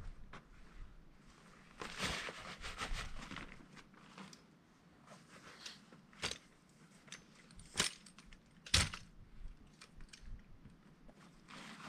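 Camping gear being handled: a rustle of fabric or bags, then a few sharp clicks and knocks.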